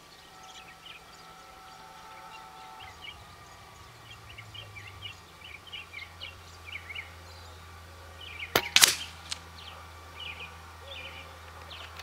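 A single shot from a .22 Air Venturi Avenger PCP air rifle, a sharp crack about two-thirds of the way through. Small birds chirp in the background.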